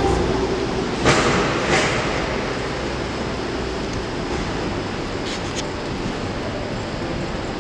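Steady background rumble in a concrete parking garage, with two brief rushing swells about a second in.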